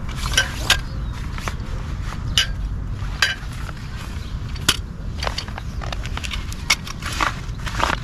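Rustling and crinkling of a nylon badminton net and its vinyl edge tape being handled, with scattered sharp clicks and taps, over a steady low rumble.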